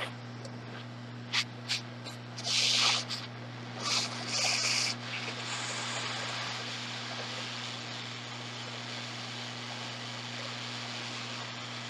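A few clicks and rustles of tweezers and handling, then from about five seconds in the steady hiss of a hot-air rework station blowing on a phone logic board, heating it to lift the touch IC. A low steady hum runs underneath.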